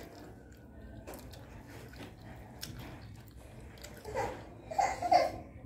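Chewing of soft steamed vegetable momos (dumplings), with faint wet mouth clicks, then a few brief voice sounds about four seconds in.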